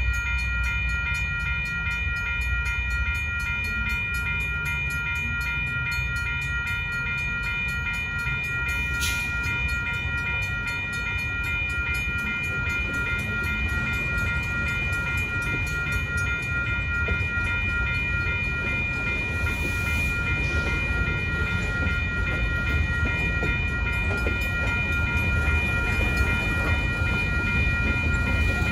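A railroad crossing's electronic bell, a WCH E-Bell, rings steadily in a fast even pulse while the crossing is active. Under it is the continuous low rumble of freight cars rolling slowly over the crossing, growing a little louder near the end.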